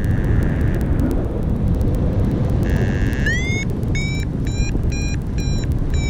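Paragliding variometer beeping: a held tone near the start and again about three seconds in, then short beeps about two a second, rising a little in pitch, the signal that the glider is climbing in lift. Heavy wind noise on the microphone from flight runs underneath and is the loudest sound.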